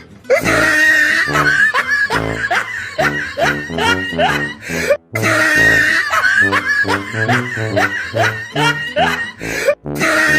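A short comedic music clip with laughter, looped about twice, with a brief cut each time it restarts.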